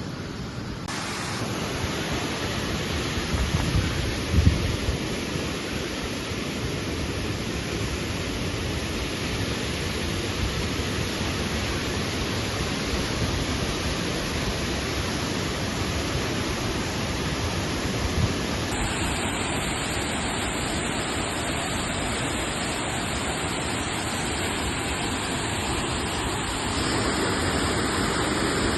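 Waterfall rushing: a steady roar of falling water. Its character shifts abruptly about a second in, about two-thirds of the way through and near the end, and a few low bumps come around four seconds in.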